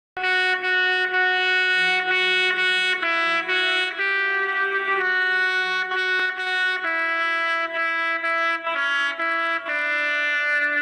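Background music: a trumpet-led brass melody of long held notes, changing pitch every second or so, over a quieter lower accompaniment.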